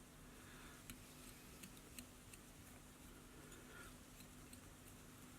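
Near silence: faint room tone with a low steady hum and a few faint small ticks, about a second in and again around two seconds.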